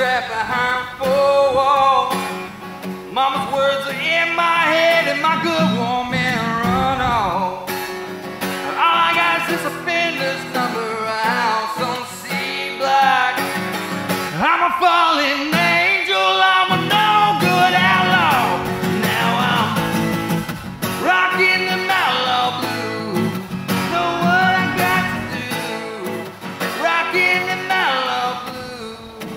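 A man singing a country-blues song, accompanying himself on acoustic guitar.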